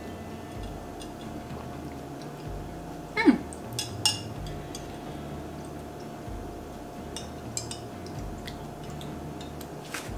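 Sipping an iced milk tea through a straw from a glass, with a few light clicks of ice against the glass. About three seconds in comes one short falling vocal sound, over a steady faint hum.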